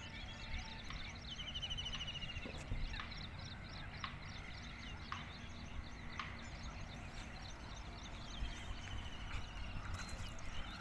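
Small birds chirping and trilling, with a repeated trill. Near the end a small hooked mrigal carp splashes at the water's surface as it is hauled in on a handline.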